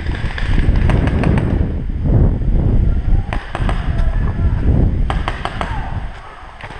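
Paintball markers firing in quick strings of shots, sharp pops in clusters, over a heavy low rumble of the player moving with the camera's microphone. The rumble drops away about six seconds in.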